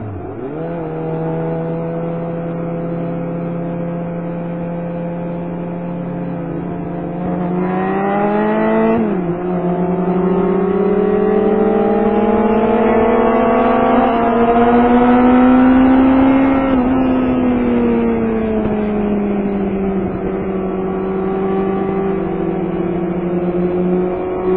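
Kawasaki Concours 14's inline-four engine heard from the rider's helmet, pulling through a gear change at the start, then revving up about eight seconds in and dropping sharply at an upshift. The revs climb again to a peak about sixteen seconds in, then ease off and hold steady.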